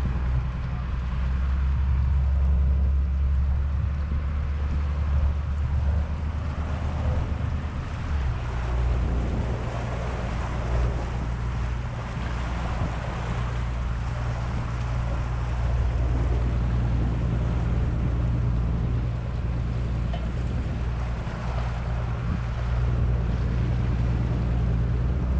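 A tour boat's inboard engine running steadily underway, a low drone whose note changes a little about eight seconds in, with the hiss of water churning in the wake behind the stern.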